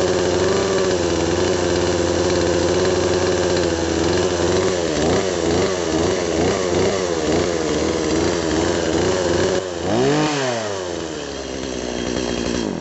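Stihl MS180's small two-stroke engine idling while it warms up after a cold start, its pitch wavering under light throttle blips. Just after ten seconds in there is one short rev that rises and falls. The newly fitted chain spins without the howl of an over-tight chain; the owner judges its tension good.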